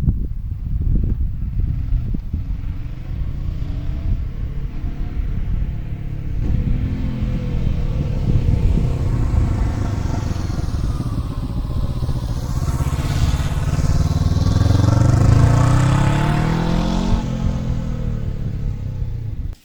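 A 2023 Honda CB500F's 471 cc parallel-twin engine on its stock exhaust as the bike rides past. The engine note builds to its loudest about fifteen seconds in, then drops in pitch and fades as it moves away.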